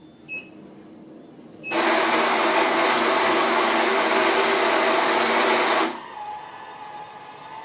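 Built-in coffee grinder of a Rex Royal S200 automatic coffee machine grinding beans for the espresso shot: a loud, even grinding that runs about four seconds and then stops. A short electronic beep comes just before it, and a quieter steady hum follows.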